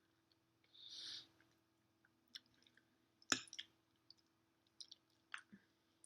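Mouth sounds of someone chewing mac and cheese: scattered soft, wet clicks, one sharper click about halfway through, and a short soft hiss about a second in.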